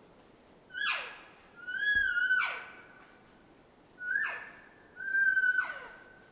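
Elk calling: four high, whistling squeals about a second apart, each with a breathy slide falling in pitch beneath it.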